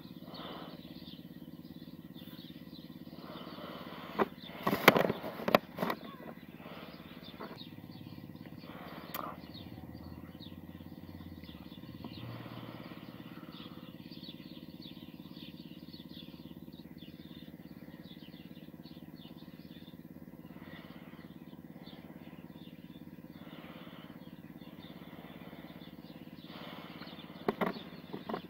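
A steady low mechanical hum, with a cluster of sharp knocks and rustles about five seconds in and again near the end.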